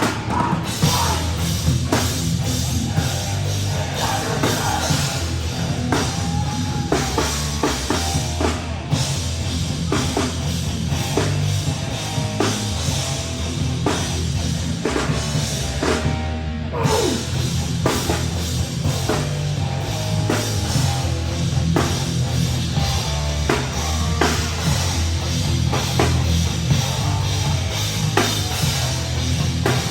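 A live heavy rock band playing loud: a drum kit hitting steadily over bass and guitars, with no let-up.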